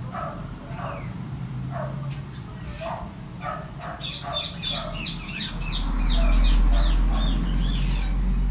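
Indian ringneck parrot chicks giving short repeated calls, a few each second. From about four seconds in a rapid run of high, falling chirps joins them, and soon after a low steady rumble rises and becomes the loudest sound.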